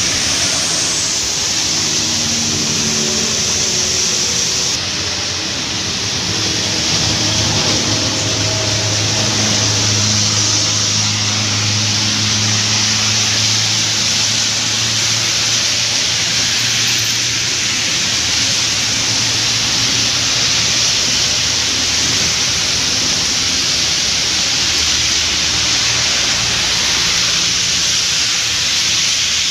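Traffic passing on a rain-soaked road in heavy rain: a steady hiss of rain and tyres on wet asphalt, with the engines of passing cars and motorcycles running underneath.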